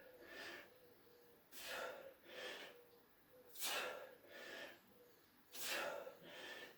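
A man breathing hard in rhythm with a side-bend exercise: a forceful breath about every two seconds, each followed by a softer one.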